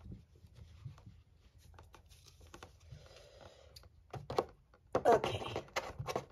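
Fingers picking and scratching at a cardboard packaging strip, then scissors snipping through the cardboard with a few sharp clicks in the last two seconds.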